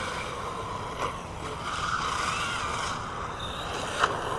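Small electric RC car driving, its motor whine rising and falling in pitch with the throttle over the hiss of its tyres on the ground. A sharp knock comes about four seconds in, with a smaller one about a second in.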